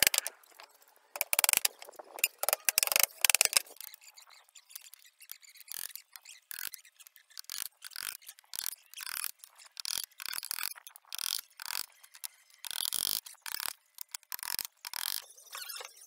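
Claw hammer driving nails into pallet-wood boards: a run of sharp strikes, the loudest and most irregular in the first few seconds, then steadier blows at about two a second.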